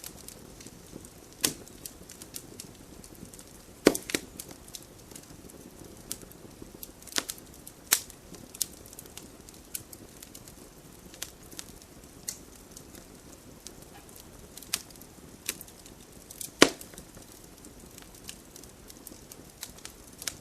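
Outdoor campfire crackling: sharp pops and snaps at irregular intervals over a soft steady hiss. The loudest pops come about four seconds in and about sixteen seconds in.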